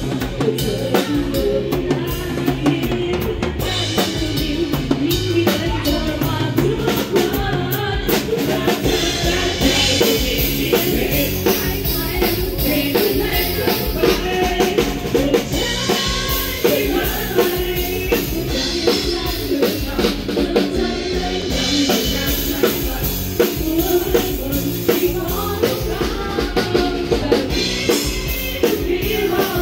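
Live band playing an up-tempo song, with the drum kit to the fore: steady bass drum and snare strokes with cymbals, over bass guitar and electric guitar.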